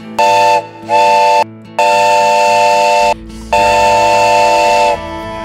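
Censor bleeps dubbed over swearing: four bleeps, the first two short and the last two over a second long, each a steady multi-note tone that switches on and off abruptly.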